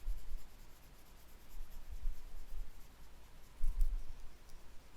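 Colouring strokes on paper, a drawing pencil rubbing softly in short strokes, with a few low bumps against the drawing surface.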